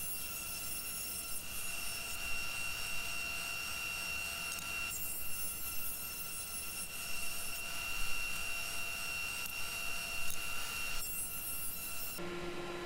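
Four-sided planer (S4S moulder) running with a steady whine as a board is fed through to be surfaced on all four sides; the tone shifts slightly about five seconds in and again near the end.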